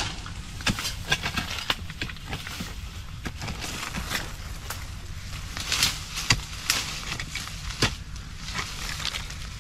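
Long-handled spade digging into dry, rooty soil: irregular sharp chops, scrapes and crunches, with a few louder strikes in the second half.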